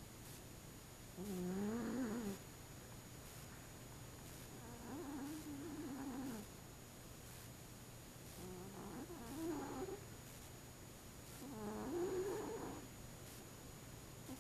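A very fat domestic cat snoring in its sleep. Four long, wavering snores come about every three and a half seconds.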